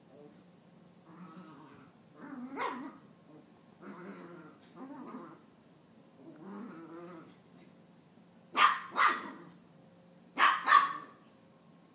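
A young Maltese growling in short bouts while spinning after its own tail, then two quick pairs of sharp barks near the end, the loudest sounds.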